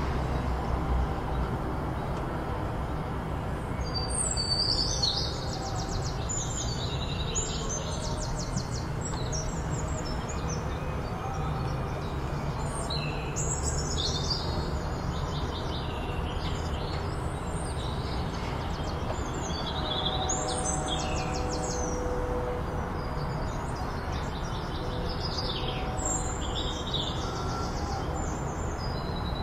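Small birds chirping and trilling again and again, starting a few seconds in, over a steady low rumble.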